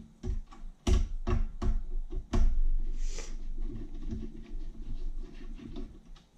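Socket and torque wrench working the connecting-rod cap bolts loose on a Kohler K301 single-cylinder engine: a few sharp metal clinks in the first two and a half seconds, then a run of lighter, quick clicking.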